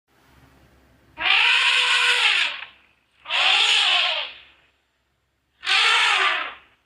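An animal calling three times, each a loud call of a second or so that rises and then falls in pitch.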